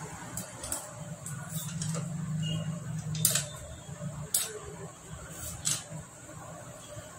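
Light metallic clicks and taps from a hand tool and scooter engine parts being handled and fitted, scattered irregularly, over a low steady hum.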